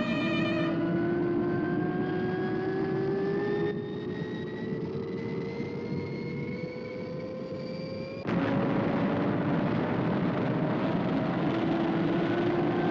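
Sound effect of a spacecraft engine: a steady rushing roar under a slowly rising whine, becoming abruptly louder about eight seconds in.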